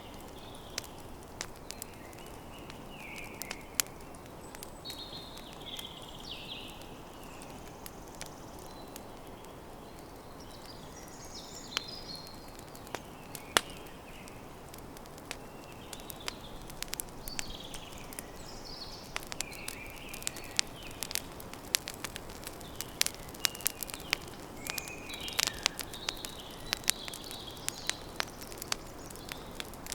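Campfire crackling, with sharp pops over a steady low hiss; the pops come thicker in the second half. Birds chirp throughout.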